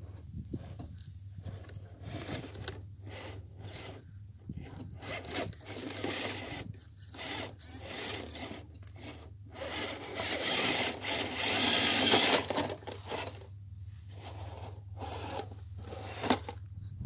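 Axial SCX10 III RC scale crawler working over snowy rock: its drivetrain whirs and its tyres crunch and scrape in stop-start bursts with short pauses between. The longest, loudest push comes about ten to twelve seconds in.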